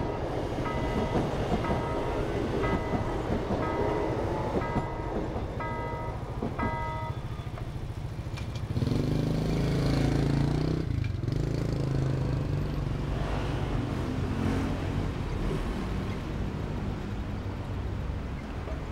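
Level-crossing warning signal sounding short ringing tones about once a second, over the rumble of a CSR electric multiple-unit train passing. The warning stops about seven seconds in. Road vehicles' engines then pull away across the crossing as the barrier lifts.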